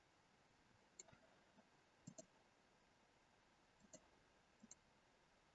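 Faint computer mouse clicks, six or so, some as quick double clicks, over near silence.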